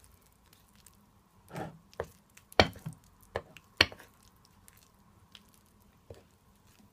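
Metal fork stirring lumpy pancake batter in a bowl: soft wet squishing, broken by several sharp clinks of the fork against the bowl, the loudest about two and a half and four seconds in.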